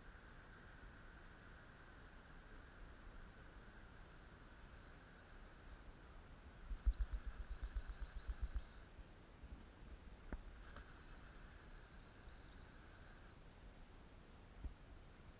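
Male hazel grouse giving their very high, thin whistled song several times: each a held note, then a few short notes and a falling trill. About halfway through comes a quick run of low thumps lasting about two seconds.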